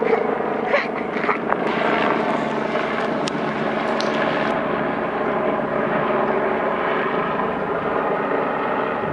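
Helicopter circling overhead, its rotor and engine making a steady, even drone.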